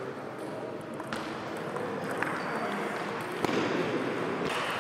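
A few sharp clicks of table tennis balls striking table and bat, about a second apart, over the background noise of a sports hall. The background grows louder about three and a half seconds in.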